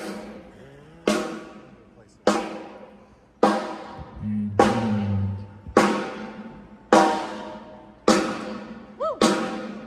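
One drum of a drum kit struck at a steady pace, about once a second, each hit ringing out and dying away: a drum being checked one hit at a time during a sound check. A brief low note sounds under it near the middle.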